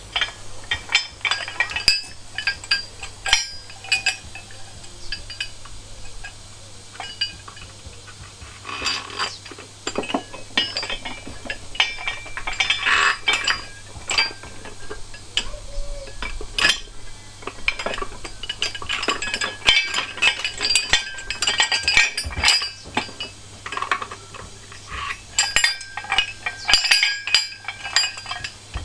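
Steel engine-stand brackets, bolts and hand tools clinking and knocking together as they are handled and offered up to the engine, a rapid irregular run of sharp metal clinks, some ringing briefly.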